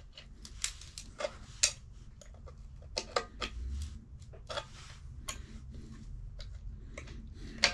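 Small irregular clicks and taps of a hand tool working on a plastic shower drain as its bolts are snugged down, roughly one or two clicks a second.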